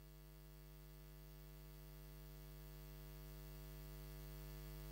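Near silence with a steady electrical mains hum, growing slightly louder.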